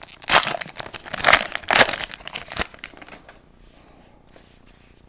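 Hockey trading-card pack wrappers crinkling and tearing as the packs are ripped open, with a few loud rips in the first two seconds. The crinkling dies away about three seconds in.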